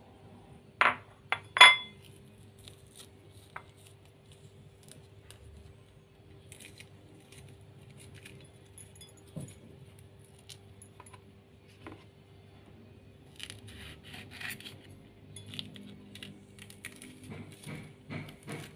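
Kitchen knife clinking against a ceramic bowl three times about a second in, the last strike the loudest and ringing. Then faint scrapes and light taps as green chili seeds are scraped out into the bowl.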